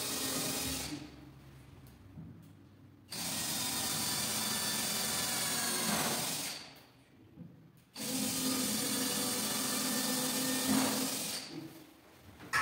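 Hand-held power drill run against a kitchen wall cabinet in three bursts: a short one at the start, then two of about three seconds each, with a steady motor hum under the noise of the bit.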